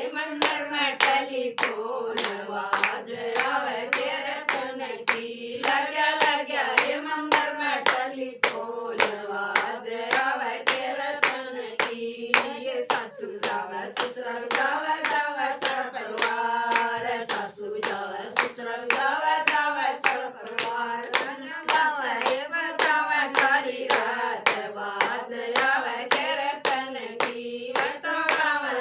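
Haryanvi bhajan kirtan: voices singing a devotional melody to steady rhythmic handclaps, about two claps a second.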